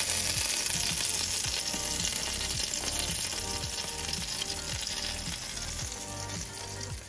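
Freshly baked chicken leg quarters and the dripped fat in the drip tray below sizzling, a steady hiss that slowly fades, over soft background music.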